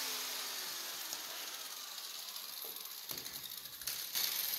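Hand-held electric angle grinder spinning down after being switched off, its whine falling in pitch as the disc coasts to a stop. A few low knocks and handling noises follow about three seconds in.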